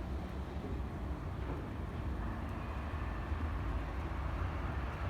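Steady low rumble of a distant vehicle engine, with a faint high whine about two seconds in.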